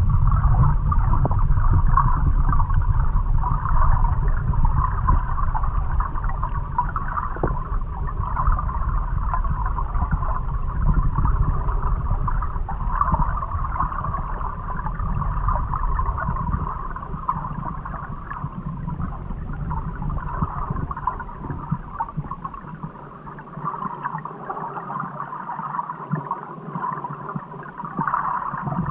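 Underwater sound picked up by a submerged camera in a river: a muffled low rumble of moving water with a steady crackling hiss above it. The rumble drops away about three-quarters of the way through.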